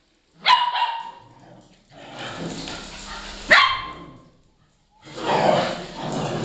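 A dog barking: two sharp barks, one about half a second in and a louder one about three and a half seconds in, with more sound picking up near the end.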